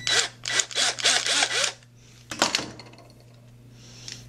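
Ridgid cordless drill/driver driving a screw into the plastic housing of a twist-lock plug in several short trigger pulses, the motor pitch rising and falling with each. A single sharp clack about two and a half seconds in.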